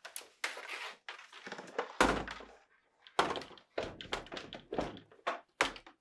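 Left door of a GE French-door refrigerator being set onto its bottom hinge pin and swung shut: a run of knocks and rattles, with one heavy thunk about two seconds in.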